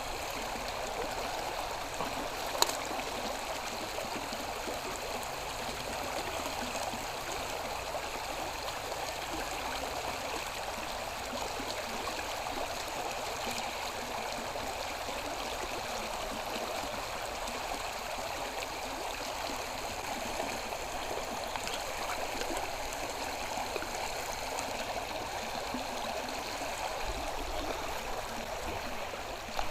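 Canal water flowing steadily, a continuous even rush and babble. One sharp click about three seconds in.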